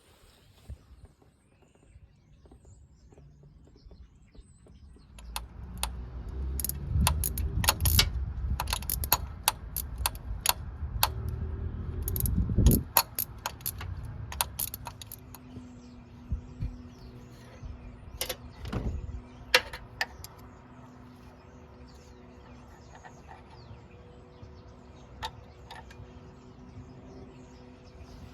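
Metal hand tools and engine parts clinking and clicking during work on the engine, busiest and loudest in the first half, then a few scattered clicks over a faint steady hum.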